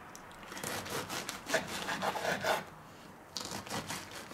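A knife sawing through a crusty cheese-topped bread roll on a wooden cutting board: a run of sawing strokes through the crust, a short pause, then a few more strokes.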